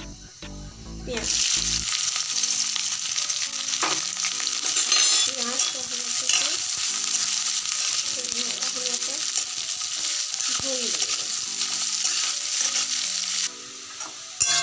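Chopped onions dropped into hot oil in a kadhai, sizzling loudly from about a second in, with a metal spatula stirring them as they fry. The sizzle stops suddenly near the end.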